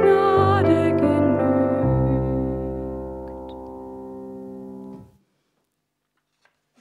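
The closing bars of a worship song on piano: a last melodic phrase, then a held final chord that slowly fades and cuts off about five seconds in.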